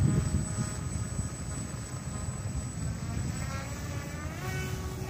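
Motor and propeller of a radio-controlled seaplane buzzing as it runs across the water, rising in pitch near the end as it throttles up to take off. Wind rumbles on the microphone, loudest at the start.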